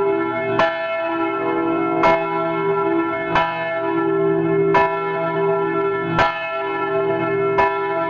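A swinging church bell rung by its clapper: six evenly spaced strokes, about one and a half seconds apart, each ringing on into the next.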